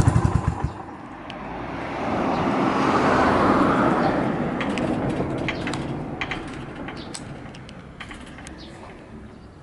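Yamaha SR400 air-cooled single-cylinder engine idling with even thumps, then shut off, its beat dying out within the first second. A rushing traffic noise then swells and slowly fades, with scattered light clicks.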